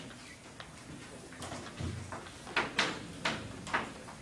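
Chalk striking and scraping on a blackboard in four or five short, sharp strokes in the second half, after a single dull thump about two seconds in.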